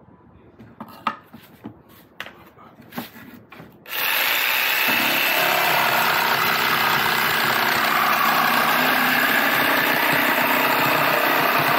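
A few light knocks, then about four seconds in an Ingco 650 W electric jigsaw starts and runs steadily, its reciprocating blade cutting through plywood.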